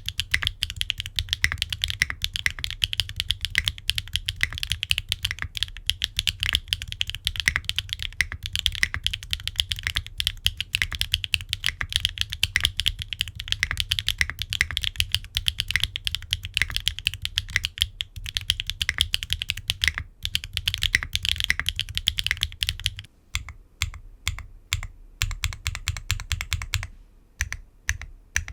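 Typing on a gasket-mounted 65% mechanical keyboard with HMX Yogrut S linear switches, an aluminum plate and case, no foam and ABS double-shot keycaps. It starts as fast, continuous keystrokes, then slows near the end into separate presses with short pauses between them.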